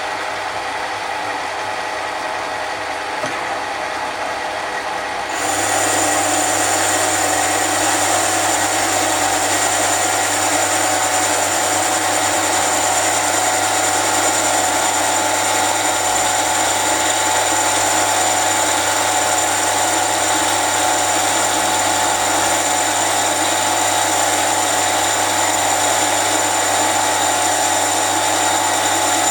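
Mini lathe switched on about five seconds in and running at steady speed, a high motor whine over a low hum, above a steady mechanical background.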